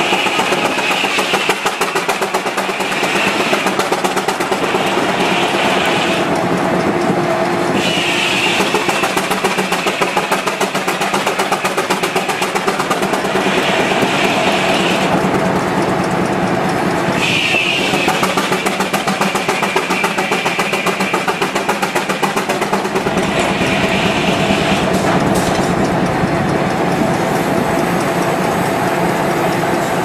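Advance-Rumely steam traction engine running under load, its exhaust chuffing in a steady, rapid beat as it belt-drives a sawmill. A higher whine rises and falls away several times over the engine's beat as the saw cuts.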